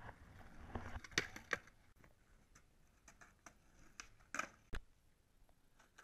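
Skateboard rolling on pavement, with sharp wooden clacks of the board hitting the ground: two about a second in and two more a little after four seconds, as the board pops and lands on tricks.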